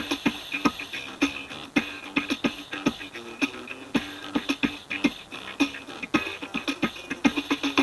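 Music with a fast, busy percussive beat played through a shop vac's motor driven as a loudspeaker; it sounds thin, with almost no bass.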